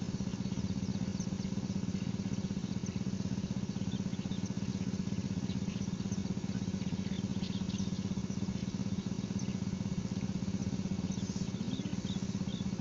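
A small engine running steadily at an even pitch, with faint short high chirps above it.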